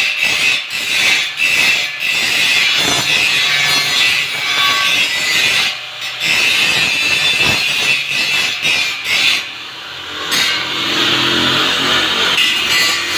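Angle grinder grinding steel, running with a steady high hiss and uneven strokes as it is worked along the metal, easing off briefly about ten seconds in.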